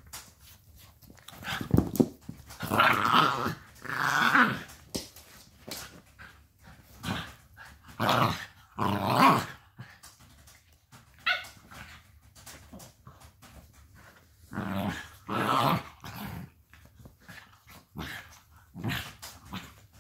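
A Jack Russell terrier puppy and an adult dog play-fighting, growling in repeated bouts of a second or two with quieter gaps between.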